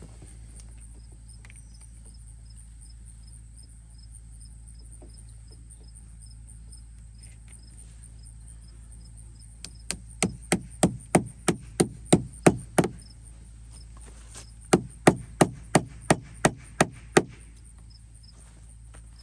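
Claw hammer tapping clips into a wooden deck board to tack down drip tubing: two quick runs of strikes, about a dozen and then, after a short pause, about nine more, some four a second, starting about ten seconds in.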